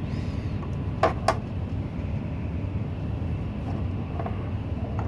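Two sharp clicks close together about a second in, from the filter housing's clamp being fitted and hooked on, over a steady low rumble.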